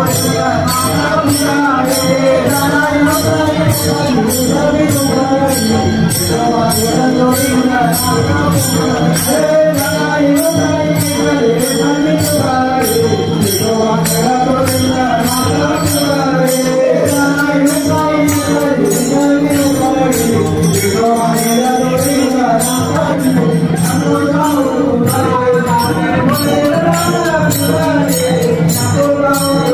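Devotional bhajan music: voices singing a chant-like melody over small hand cymbals that strike a steady, fast beat.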